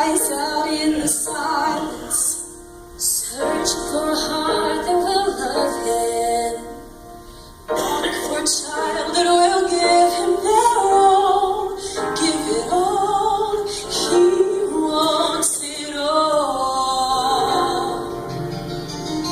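Gospel worship music: a woman singing long, wavering held notes over instrumental backing, with a brief quieter lull about seven seconds in.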